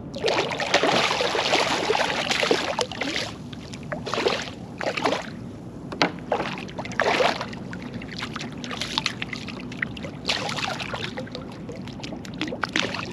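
Water splashing and sloshing in irregular bursts beside a kayak as a hooked stingray thrashes at the surface, heaviest in the first few seconds.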